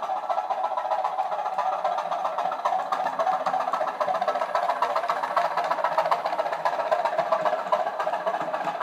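Legomanbiffo DCC sound chip in an OO-gauge Bachmann class 205 'Thumper' DEMU model, playing its diesel engine sound through two small sugar-cube speakers as the model runs. It is a steady, fast, even knocking with almost no deep bass.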